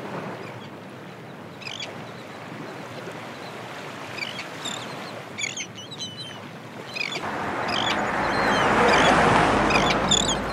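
Gentle surf washing on a shingle beach, with birds giving short calls every second or so. From about seven seconds in a louder rushing noise swells up, peaks and eases off near the end.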